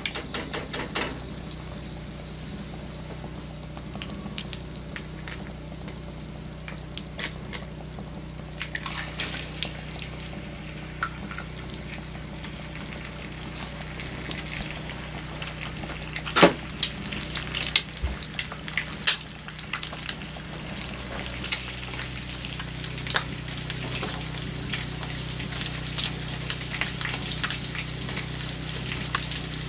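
Egg frying in hot bacon grease in a cast-iron skillet: a steady sizzle with many scattered sharp pops and spatters.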